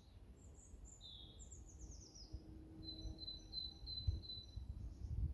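Songbirds singing: high chirping notes, a quick falling run of notes followed by a fast string of repeated notes, over a low rumble that swells near the end.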